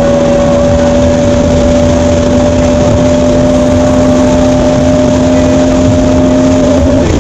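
Bajaj Pulsar NS200's single-cylinder engine running at steady revs under way, with road and wind noise. The engine note holds nearly level, rising slightly, then shifts just before the end.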